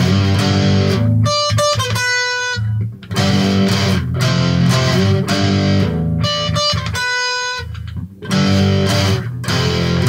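Homemade electric baritone guitar, capoed with an ice-cream stick and rubber bands, played through a Marshall amp: loud strummed chords, broken twice by short runs of high ringing single notes, about a second in and again around seven seconds.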